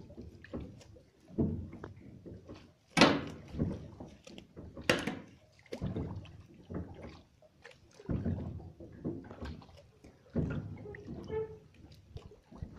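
Oars rowing a small boat: a stroke roughly every two seconds, each with a swish and splash of water and a knock of the oars. Two strokes about three and five seconds in are sharper and louder.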